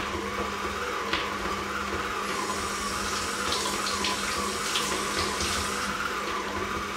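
Kitchen tap running into a steel sink while oranges are rinsed under it, strongest from about two seconds in to about six seconds. Under it, the steady hum of an electric stand mixer mixing cookie dough.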